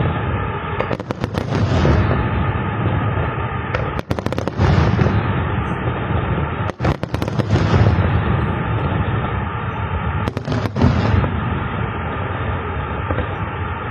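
Aerial fireworks display: a continuous rumble of booms and crackle, with clusters of sharp bangs about a second in, around four seconds, around seven seconds and again near ten seconds.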